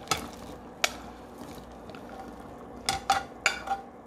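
Diced vegetables being slid off a porcelain plate into an earthenware pot of boiling broth: sharp clinks of the plate on the pot rim, one just after the start and another about a second in, then a quick run of ringing clinks near the end, over the soft bubbling of the broth.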